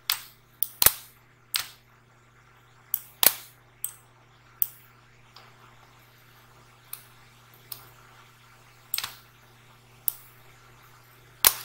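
Computer mouse clicking sharply about a dozen times at irregular intervals, with a faint steady electrical hum underneath.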